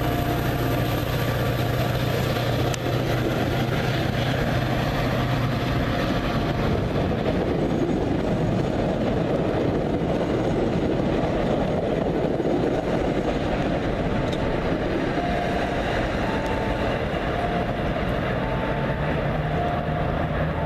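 MBTA commuter rail train pulling out past the platform: the diesel locomotive's engine hum is strong for the first few seconds and then eases, while the passenger coaches roll by with a steady rumble of wheels on rails.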